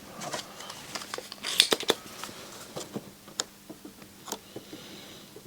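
Small, scattered clicks and taps of tools and a component being handled at a circuit board during soldering work, with a cluster of louder clicks about one and a half seconds in.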